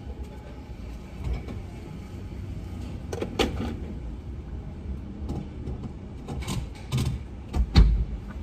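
Low steady hum inside a stopped car, with a few dull knocks and thumps, the loudest near the end.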